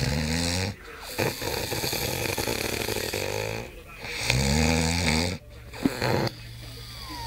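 Heavy snoring: a low, rattling snore on an in-breath, a long breathy out-breath, then another rattling snore about four seconds after the first.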